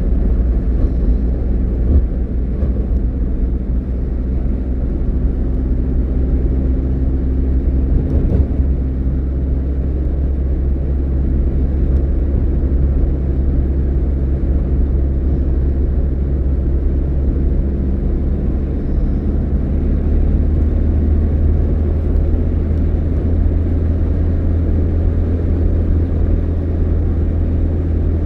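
A car driving, with a steady low engine and road rumble and a brief bump about eight seconds in.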